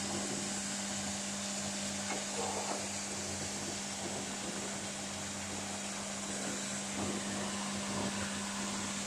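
Double-ended woodworking cutting, drilling and insert-nut machine running, its electric motors giving a steady hum with a high hiss, and a few faint knocks about two seconds in and again near the end.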